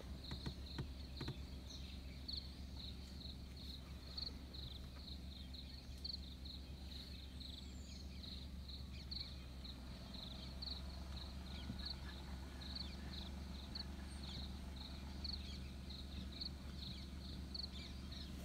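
Faint outdoor ambience: an insect chirping in a steady, high-pitched rhythm of about two to three chirps a second, over a low, steady hum.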